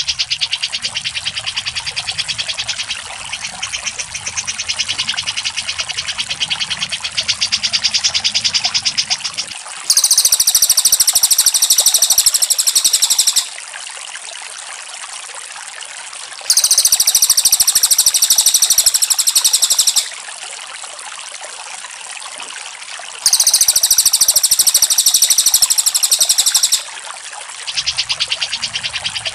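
Bird-song training recording (masteran) of cucak jenggot (grey-cheeked bulbul) and cililin. A steady, rapid high chattering runs on, broken three times by a louder, very high rapid trill of about three and a half seconds each.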